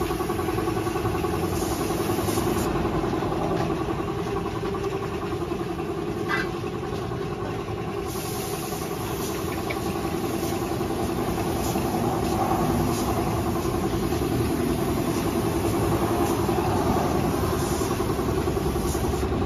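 Air compressor running steadily with a constant droning hum, along with the hiss of a paint spray gun in use.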